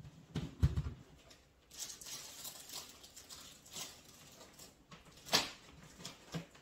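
Handling noise from rummaging in a plastic storage box: a dull knock about half a second in, a stretch of rustling, and a sharp click a little after five seconds in.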